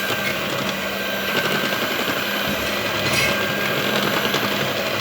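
A steady machine whir with a faint low hum underneath.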